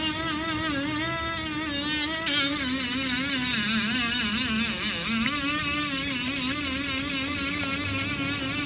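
Small brushed DC motor whining as it spins a stack of wooden discs that are being sanded round with hand-held sandpaper; the pitch wavers and dips as the sandpaper drags on the spinning discs, over a scratchy sanding hiss.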